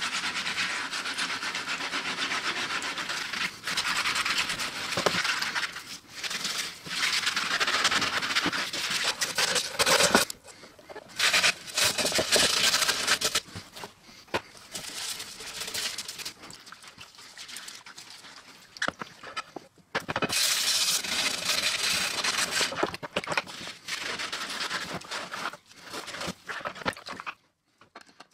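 Stainless steel scouring pad scrubbed back and forth over a wet metal sign in a plastic tray: a harsh scratching rub, continuous for the first third, then stopping and starting in shorter stretches with quieter gaps between.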